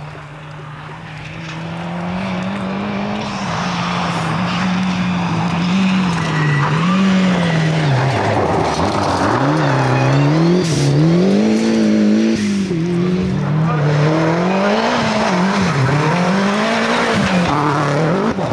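Rally car engines revving hard on a loose gravel stage, the pitch climbing and dropping again and again as the drivers lift off and change gear, over a hiss of tyres and flung gravel. The sound grows louder over the first few seconds as a car approaches.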